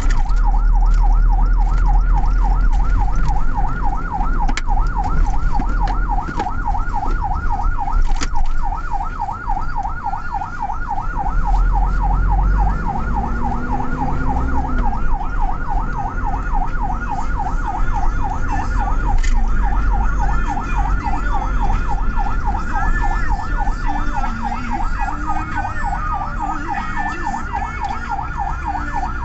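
Ambulance siren in fast yelp mode, a pitched wail sweeping up and down about four times a second, sounding an emergency run. Under it, the steady low rumble of the moving ambulance's engine and road noise.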